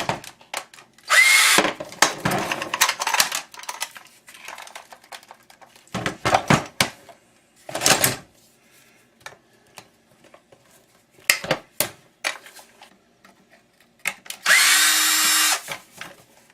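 A power drill run in two short bursts, each spinning up with a rising whine: a brief one about a second in and a longer one near the end. In between come scattered clicks and knocks of metal parts being handled.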